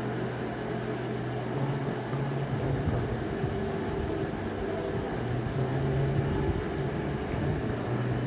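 Steady low machine hum, like a running motor or appliance, with a low tone that swells and eases slightly.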